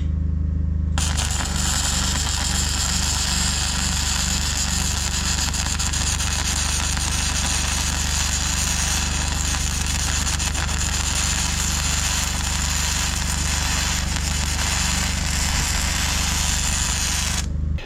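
MIG welder arc crackling and sizzling steadily as a weld bead is laid, starting about a second in and stopping abruptly near the end. A steady low hum runs underneath.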